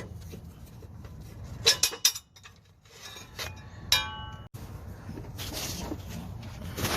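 Metal parts being handled: a few sharp clinks and knocks, and just before the middle one short metallic ring, as a steel motor mount is taken out and set down.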